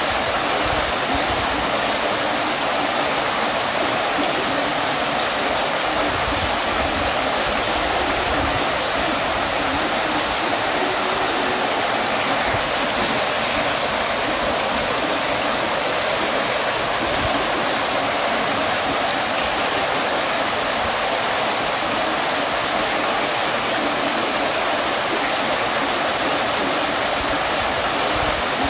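Water fountain splashing steadily: a constant, even rush of falling water that never pauses.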